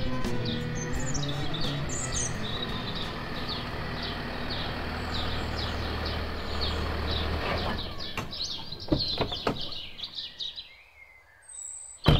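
Small birds chirping over and over with short falling calls, over the running engine and tyres of a Mercedes-Benz S-Class as it pulls up and stops. The car sound dies away about seven to eight seconds in, followed by a few clicks and a sharp knock near the end, a car door being shut.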